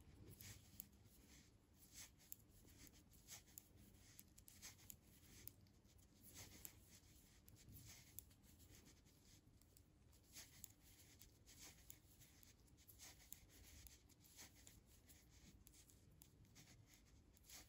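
Faint, irregular light clicks and scratching from knitting needles and yarn as knit stitches are worked across a row.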